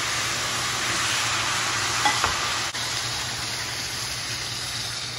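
Water poured into a hot pan of rice toasted in oil, hissing and sizzling as it hits the hot oil and turns to steam; the sizzle eases off slowly toward the end. A couple of light knocks about two seconds in.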